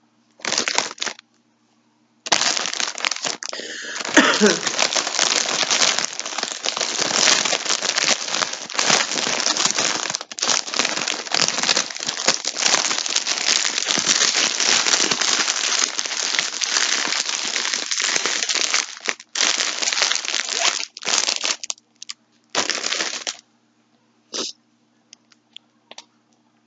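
Packaging crinkling and rustling as it is handled, almost without a break for about twenty seconds, with a few short rustles before and after.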